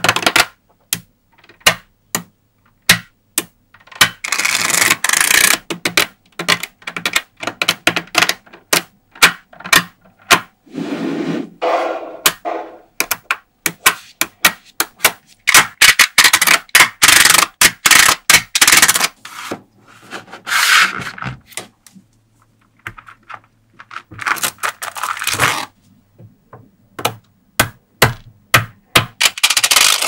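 Small magnetic balls clicking and clattering as sheets of them are snapped together and pressed into place: single sharp clicks between bursts of rapid rattling ticks, with a short rubbing scrape about eleven seconds in.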